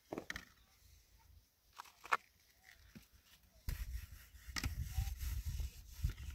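Plastic dishes, bowls and a basket lid knocking and clattering as they are washed by hand: a few separate knocks early on, then more frequent. Wind buffets the microphone from about halfway through.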